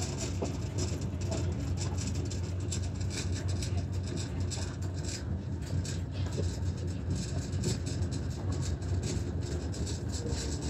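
Tram running along street track: a steady low rumble and hum with frequent light clicks and rattles.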